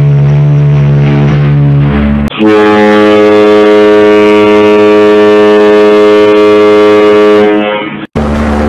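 The deep whistle of the liner RMS Queen Elizabeth, held steady, cuts off about two seconds in and gives way to the horn of the cruise ship MS Grand Princess, one long steady blast at a higher pitch that fades out near the end. Another ship's horn starts just before the end.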